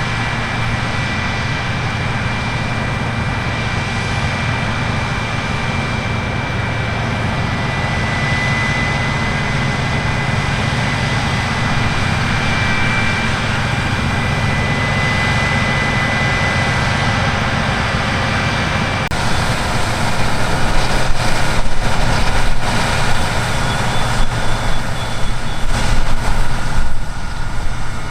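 Heavy harvest machinery with a large diesel engine running steadily, with a low hum and a thin high whine. About two-thirds of the way in, the sound becomes louder and rougher, with irregular knocks and rushing.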